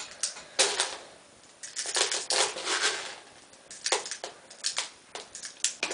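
Airstrike 450 spring-powered airsoft pistol being cocked and fired several times: a string of sharp clicks and snaps from the slide and spring, some in quick clusters.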